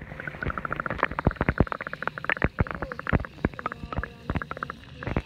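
Underwater sound picked up by a camera held below the surface of shallow sea water. Air bubbles gurgle and pop in a fast, irregular run of short clicks, some with a brief pitched ring, after one sharp knock as it goes under.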